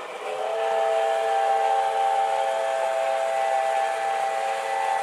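Model Santa Fe 4-8-4 steam locomotive's chime whistle blowing one long blast of several tones sounding together, over the rolling noise of the running model train.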